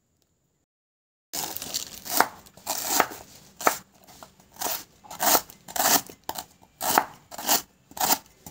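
Kitchen knife slicing through fresh lemongrass stalks onto a wooden cutting board, beginning about a second in. Each cut gives a crisp crunch and a knock on the board, about twice a second in an even rhythm.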